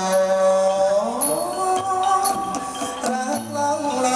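Thai likay song: a singer's voice held in long notes that slide slowly up and down, over musical accompaniment.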